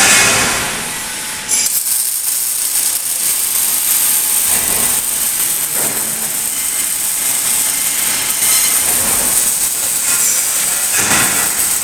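Robotic arc welding: the welding arc gives a steady, loud hiss. It dips briefly about a second in and picks up again sharply, as if the arc restarts.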